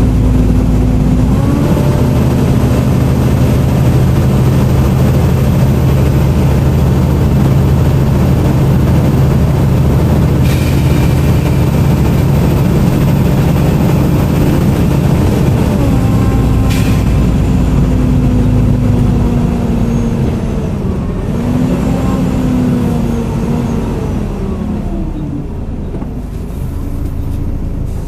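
Volvo B7TL double-decker bus's diesel engine and drivetrain heard on board while under way, with the whining note that bus enthusiasts call a 'hoover'. The pitch steps as it changes gear a couple of times, then it eases off and goes quieter near the end as the bus slows.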